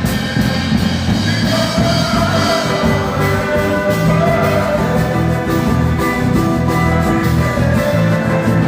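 Worship music: sustained, held chords over a dense, steady bass.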